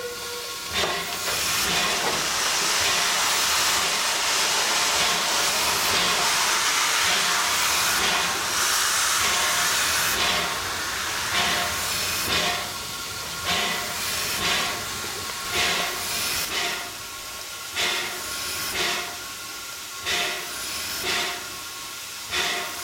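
Stroudley Terrier steam tank locomotive standing in steam, with a loud steady hiss of escaping steam. About halfway through the hiss gives way to a slow, regular puffing, about once a second.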